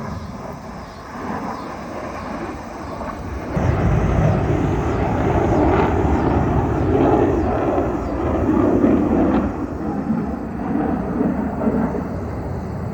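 Blue Angels F/A-18 Super Hornet jets passing over, their engine noise swelling sharply about three and a half seconds in and easing off again after about ten seconds.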